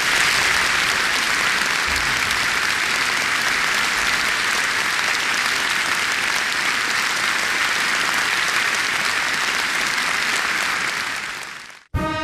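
Concert-hall audience applauding steadily, fading out near the end. A wind band's held opening chord starts just as the applause ends.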